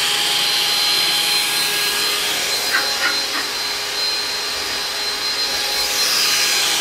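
Electric hand mixer running steadily in a mixing bowl, a continuous motor whir with a constant high whine.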